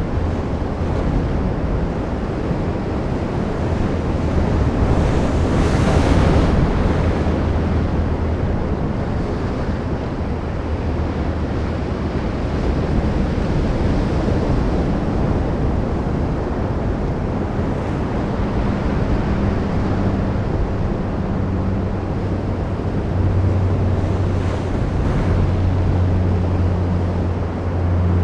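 Sea waves washing ashore in a continuous rush, one swelling louder about six seconds in, with a low steady rumble of wind on the microphone underneath.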